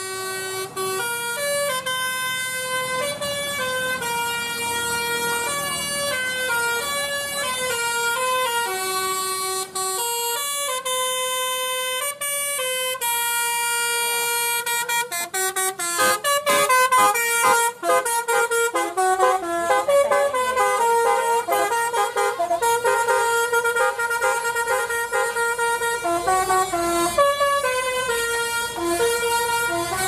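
A bus's Basuri telolet horn playing a tune of clear, stepped notes without a break. From about halfway it gets louder and busier, with quick pulsing notes, as the bus comes close.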